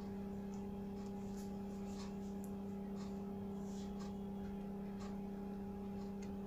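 Steady low electrical hum with a couple of higher overtones, with faint scattered ticks as multimeter probes touch solder joints on a circuit board.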